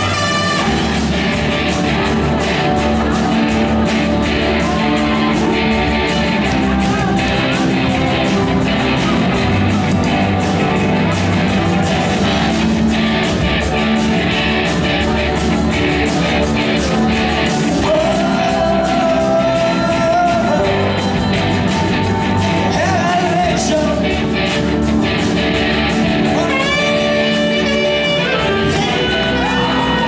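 Live rock band playing loud amplified music, with electric guitars and a singer's voice over it.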